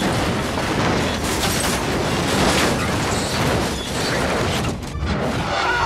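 A car rolling over and crashing: a dense, loud rumble with several heavy impacts.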